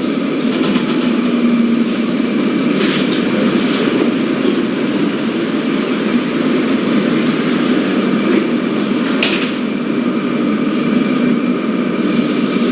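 Steady drone of an airliner cabin in flight: engine and air noise, with a few brief clicks about three, four and nine seconds in.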